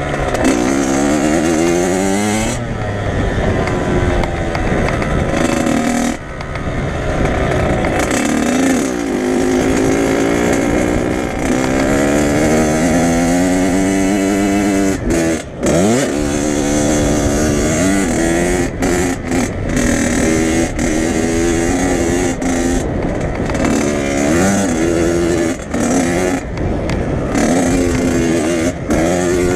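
Dirt bike engine under hard throttle, its pitch climbing and dropping again and again as the rider accelerates, shifts and backs off. There are brief throttle-offs about six seconds in and again around fifteen seconds, each followed by a quick rev back up.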